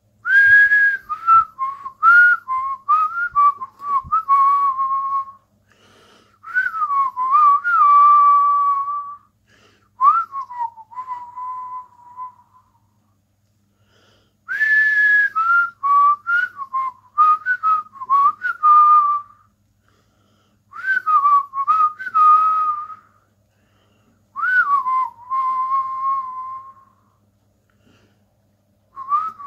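A man whistling through pursed lips in about six short phrases separated by pauses. Each phrase slides down from a higher note, runs through a few quick short notes and ends on a longer held note, with a breathy rush of air at the starts.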